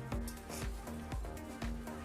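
Background music with held notes and a steady low beat.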